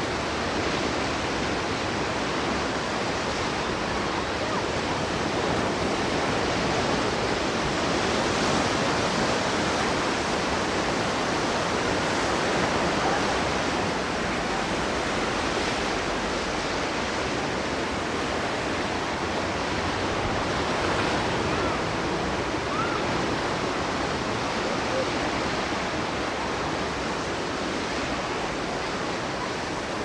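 Ocean surf breaking and washing up a sandy beach: a steady rush of waves that swells gently a few times.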